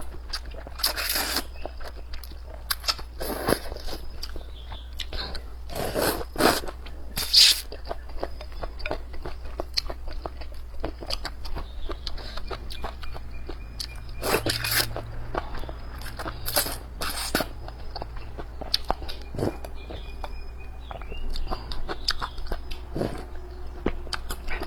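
Close-miked eating sounds: a person biting and chewing springy vermicelli sheets in a spicy braised dish. The mouth noises are irregular short smacks, with the loudest clusters about a second in, around six to seven seconds in, and again around fourteen to seventeen seconds in.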